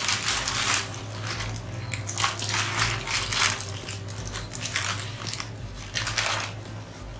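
Compost of dried banana leaves rustling and crunching as gloved hands scoop it from a black plastic sack into clear plastic bags, the plastic crinkling with it, in irregular bursts.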